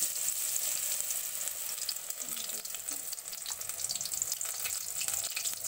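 Besan-battered eggplant slices frying in hot oil in a kadhai: a steady sizzle dotted with many sharp crackles and pops.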